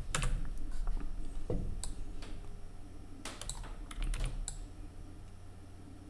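Computer keyboard keystrokes and clicks, coming irregularly a few at a time, over a low steady hum.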